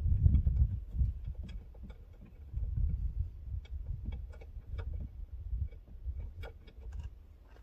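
Socket ratchet clicking in scattered ticks as a door-panel bolt is turned out with a slightly oversized 1/2-inch socket, over low rumbling handling noise.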